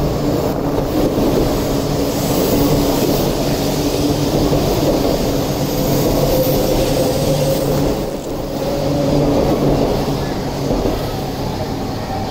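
Shinkansen train pulling out of the platform: a steady rumble of wheels with a hum from the traction motors, easing off near the end.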